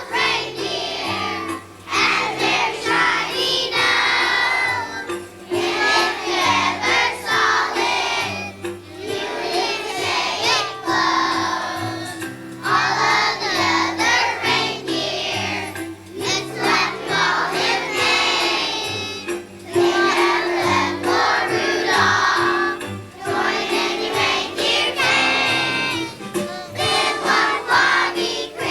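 A group of young children singing a Christmas song together, with instrumental accompaniment underneath.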